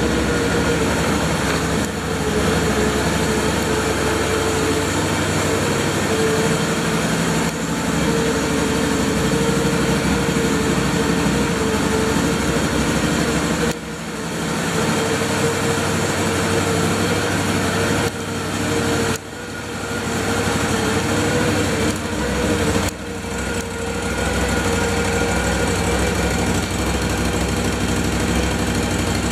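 Can-Am Outlander 1000 ATV's Rotax V-twin engine running steadily at idle, with a few short dips in level.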